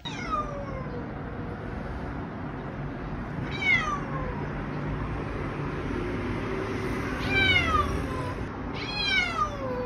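Ginger cat meowing four times. Each meow is drawn out and falls in pitch, two of them coming close together near the end.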